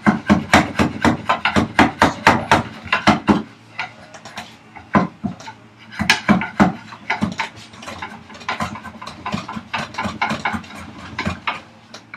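Hand rasp working the edge of a wooden vise chop in quick short strokes, about three a second, loudest for the first few seconds, then sparser and quieter. It is taking material off so the chop sits flush.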